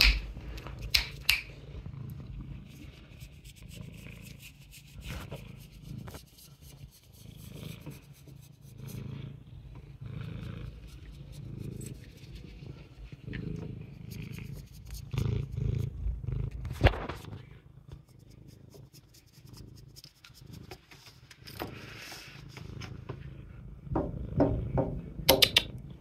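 Domestic cat purring close to the microphone, a low uneven rumble, with rustling and a few sharp clicks and knocks, the loudest about two-thirds of the way through and near the end.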